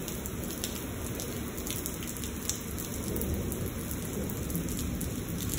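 Heavy rain falling on a wet concrete driveway: a steady hiss full of individual drops ticking, over a low rumble of thunder.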